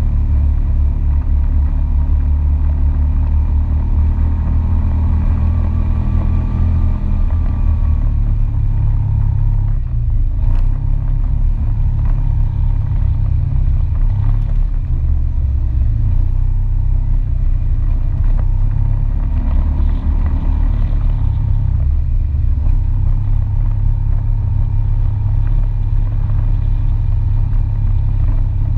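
All-terrain vehicle engine running at a steady cruise along a dirt trail, a constant low rumble.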